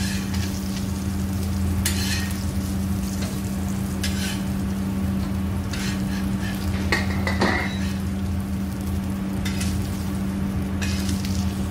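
Fish fillet pieces sizzling in oil on a flat tawa griddle. A metal spatula scrapes under them to lift them off the pan several times, over a steady low hum.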